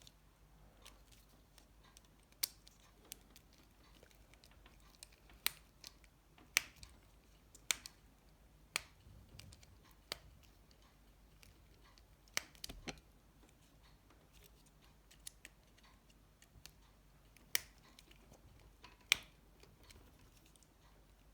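Sharp, irregularly spaced clicks and taps, about a dozen, from small tools and the Nokia 7373's plastic and metal parts being handled during reassembly.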